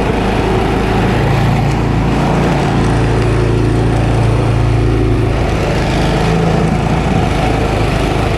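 Snowblower's small gasoline engine running steadily, its note shifting slightly about five seconds in.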